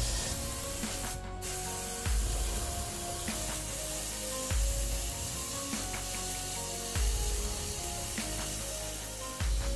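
Sandblasting nozzle hissing steadily as abrasive blasts an aluminum waffle pan inside a blast cabinet. Background music runs over it, with held notes and a deep bass beat about every two and a half seconds.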